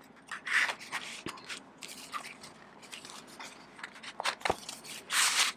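A thin Midori A6 paper notebook refill being forced into a tight clear plastic cover pocket: rustling, crinkling and scraping of plastic against paper, with scattered small clicks and two louder scraping swishes, one about half a second in and one near the end.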